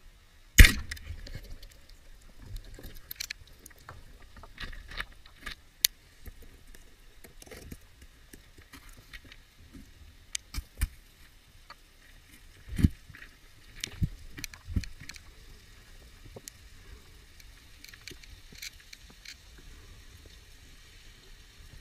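Underwater: a loud sharp snap about half a second in as the speargun fires, followed by scattered clicks and knocks from the spear, shooting line and gear over a low rumble.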